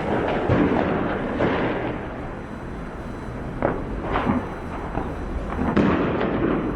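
New Year's Eve fireworks and firecrackers going off in the street: a run of sharp bangs, about half a dozen, clustered around the middle and again near the end, over a steady background of crackling and street noise.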